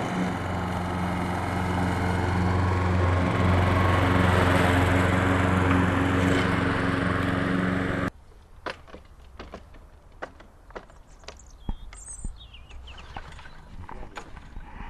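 Petrol rotary lawn mower running steadily at full throttle as it is pushed over scarified turf, collecting the raked-out thatch. About eight seconds in the sound cuts off abruptly to a much quieter background with scattered clicks and a few short high chirps.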